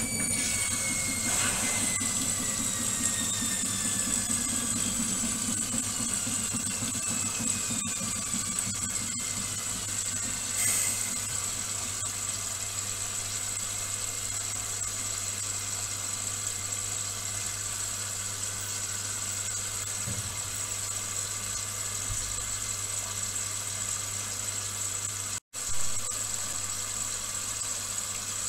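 Indesit front-loading washing machine running: a high motor whine falls steadily in pitch over about the first ten seconds as the drum slows, then holds steady over a low hum. Near the end the sound drops out for an instant and picks up again at the start of the drum's load-distribution turning for the rinse.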